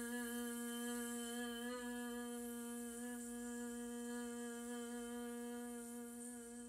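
A woman's voice making a long bumblebee buzz, a yoga bee breath (bhramari): one steady pitch held on a single out-breath, stopping right at the end.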